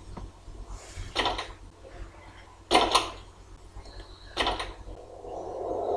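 Film soundtrack with a low steady hum and three short, harsh swishing sounds about one and a half seconds apart.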